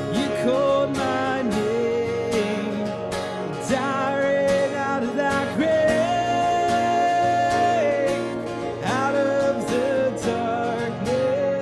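A man singing a worship song while strumming an acoustic guitar, holding one long note in the middle of the phrase.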